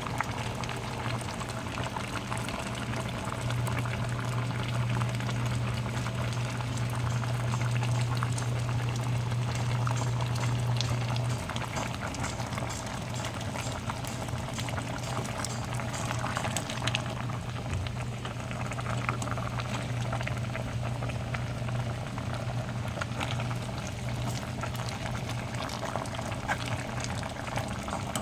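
Pot of kare-kare stew simmering, bubbling with many small pops and crackles over a steady low hum that eases slightly about eleven seconds in.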